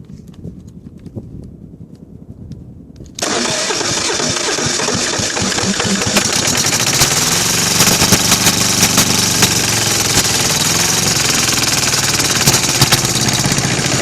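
Kohler KD425-2 two-cylinder diesel engine catching suddenly about three seconds in and then running loud, its speed wavering. It is a hard cold-weather start, which the owner puts down to fuel too cold to flow through the small fuel filter.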